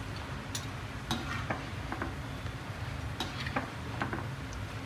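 Moong dal fritters sizzling in hot oil in a steel kadai, while a slotted spoon and wire-mesh strainer clink and scrape against the pan as the fritters are lifted out, about seven sharp clinks in all.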